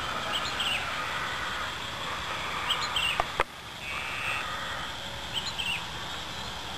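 Rural dawn ambience: a bird repeats a short chirping call about every two and a half seconds over a steady drone of insects. A single sharp click a little past three seconds in.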